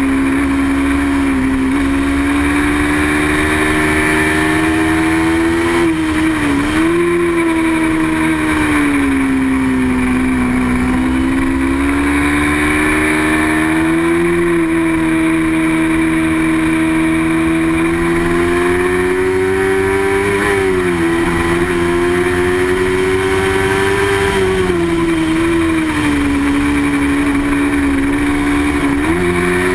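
Small-displacement racing motorcycle engine running hard at high revs under a broad rush of noise. Its pitch wavers up and down and drops sharply and briefly a few times.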